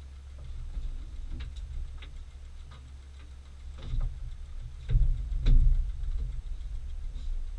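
A few sharp knocks and creaks from the bamboo and wooden platform as a man shifts, stands and steps across it, the loudest a little after five seconds in, over a steady low rumble.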